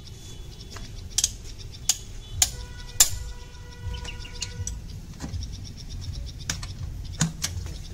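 Sharp metal clinks and knocks from hand tools during a tractor oil service, a second or so apart. About two and a half seconds in, one knock leaves a ringing metallic tone that lasts about two seconds.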